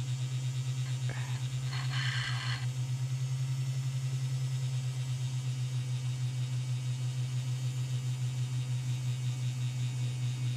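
Heljan Class 35 Hymek OO-gauge model locomotive's motor and drive running under power fed straight to its wheel contacts, spinning the wheels as a cotton bud cleans the treads. It makes a steady low hum with a fast, even flutter, and there is a brief scratchy rasp about two seconds in.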